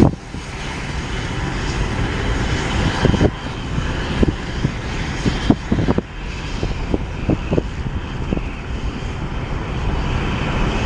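Sikorsky S-76D helicopter running on the ground with its rotor turning: a steady turbine-and-rotor noise, with irregular low thumps from about three seconds in.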